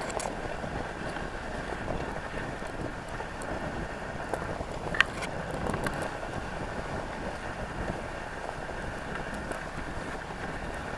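Dogsled moving along a packed snow trail: steady hiss of the runners over the snow, mixed with wind on the microphone. There is a sharp click about five seconds in.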